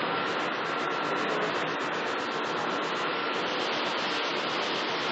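Milk vending machine dispensing: its pump runs while a thin stream of milk pours into a glass jar, a steady hiss with a faint steady whine.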